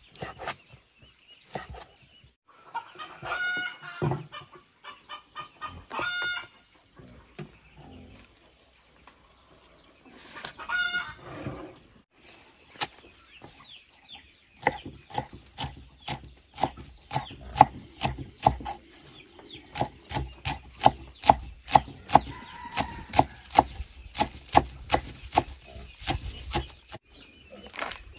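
Chickens calling, with a few loud drawn-out calls in the first dozen seconds. After that comes a long quick run of short sharp sounds, about two or three a second.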